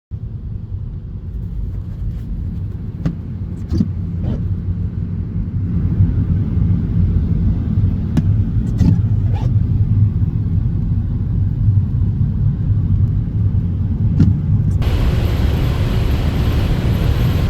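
Steady low rumble, with a few short clicks; a high hiss joins about fifteen seconds in.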